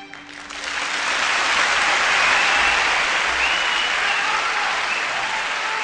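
Audience applauding: the clapping swells up over the first second after a piece of music stops, holds steady, then slowly fades toward the end.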